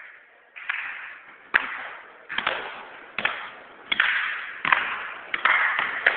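A basketball bouncing in a steady dribble, about eight bounces at a little over one a second, each thud trailing off in an echo.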